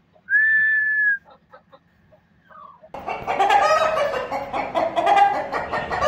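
Aseel chickens calling: one short, high, steady note about a third of a second in, then from about three seconds a loud, dense run of harsh calls.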